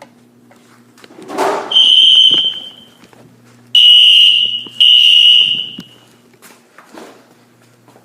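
Home fire alarm system sounding a loud, high-pitched steady alarm tone in three blasts of about a second each, the last two back to back, as the hallway smoke detector is tripped during a test. A short rushing noise comes just before the first blast.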